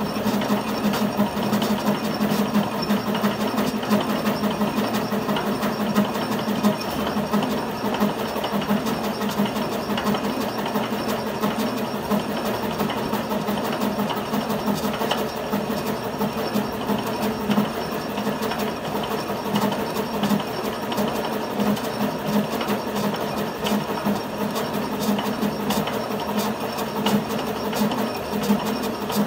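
Metal lathe running with a thread tap turning in the chuck, hobbing teeth into a gear blank that spins against it on the tool post: a steady, fast mechanical chatter of cutting.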